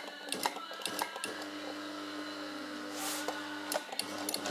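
Brother electric sewing machine's motor running, started by pressing its foot pedal. A steady hum sets in about a second in and stops near the end, with scattered clicks around it.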